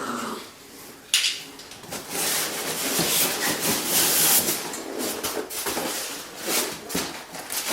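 Packing material and cardboard being handled: rustling and scraping, with a knock about a second in.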